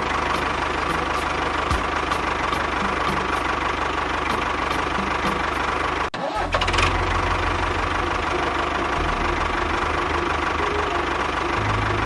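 Tractor engine idling with a steady low knocking beat. It breaks off briefly about six seconds in and comes back with a heavier beat.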